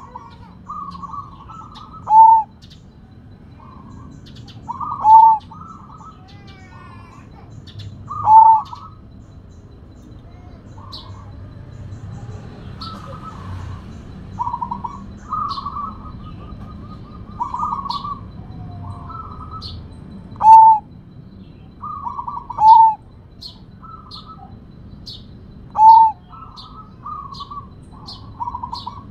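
Zebra dove of the Sumbawa strain (perkutut) singing its cooing song: repeated phrases of quick soft notes, many ending in a loud, arching coo, every two to three seconds. The phrases are softer and lack the loud ending for several seconds in the middle.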